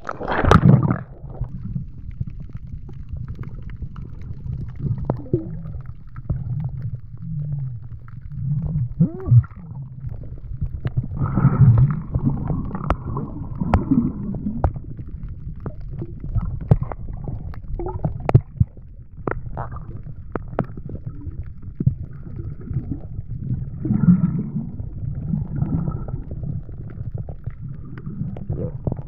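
A splash about half a second in as the camera goes under the sea surface, then a muffled underwater rumble and sloshing of water against the camera while diving over a coral reef, with scattered short clicks.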